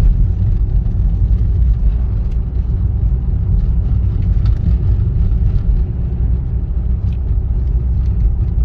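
Car driving at low speed, heard from inside the cabin as a steady low rumble of engine and road noise.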